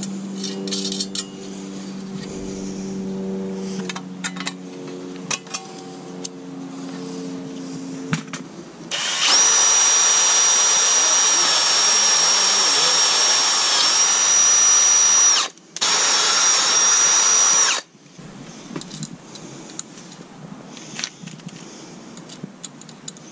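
Milwaukee cordless drill boring through aluminum angle and tubing. It runs with a lower steady hum for the first several seconds, then at full speed, loud with a high whine, for about nine seconds with one brief stop. Small metallic clicks of parts being handled follow near the end.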